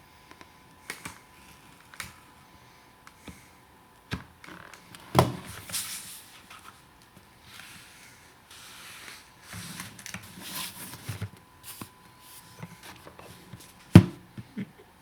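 A blade cutting and scraping through a car sun visor's cloth cover and plastic, with hand-handling rustles and scattered clicks. Two sharp knocks stand out, about five seconds in and near the end.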